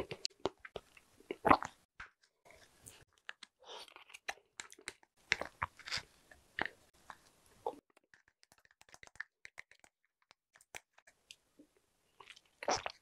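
Close-miked eating sounds: chewing and mouth noises from spoonfuls of a soft dessert, with sharp clicks of a metal spoon against a small plastic cup. The loudest bursts come about one and a half seconds in and near the end.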